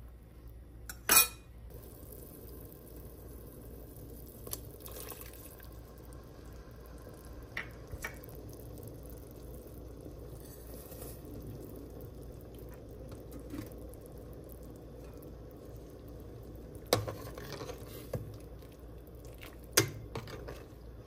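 Metal ladle clanking against a stainless steel pot of soup, once sharply about a second in and a few times near the end as it stirs, over the steady low sound of the pot boiling.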